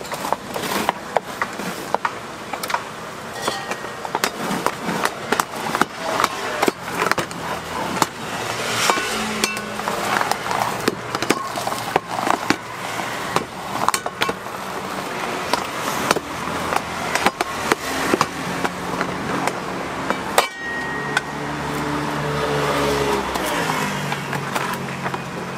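A wooden paddle pressing and scraping sticky puffed rice flat in a metal tray, with many irregular taps, knocks and scrapes against the tray's rim. In the last few seconds a low droning hum, falling slightly in pitch, comes in under it.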